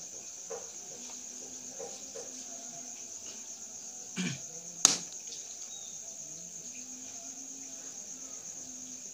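Steady high-pitched chirring of crickets. About four seconds in there is a brief dull knock, followed at once by a sharp click, the loudest sound.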